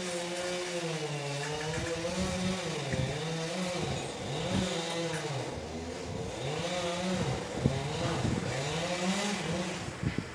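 Chainsaw engine running, its pitch dipping and rising again and again as it is throttled and loaded, with a few sharp knocks near the end.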